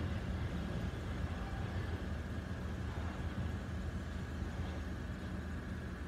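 Idling car engines, a steady low rumble.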